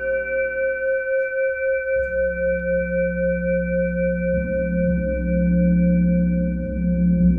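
Quartz crystal singing bowls ringing in long, steady tones with a slow pulsing wobble, as a wand is run around a bowl's rim. A deeper tone comes in about two seconds in and swells louder past the middle.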